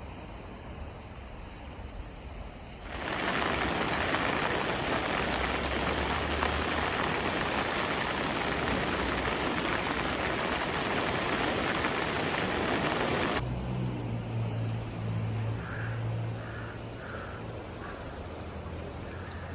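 Rushing water of a rain-swollen river: a loud, even rush that starts suddenly about three seconds in and cuts off abruptly some ten seconds later. Before and after it there is a quieter flowing-water hiss, and after it a low hum.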